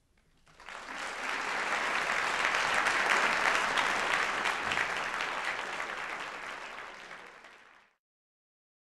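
Audience applauding. The clapping builds within the first second or so, slowly fades, then cuts off suddenly near the end.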